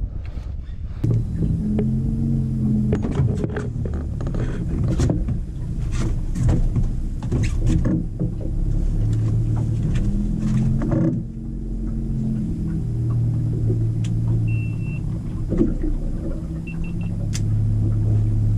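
Boat engine running at low speed, its pitch rising and falling a couple of times, with scattered knocks and clatter on deck. Near the end come short trains of high electronic beeps.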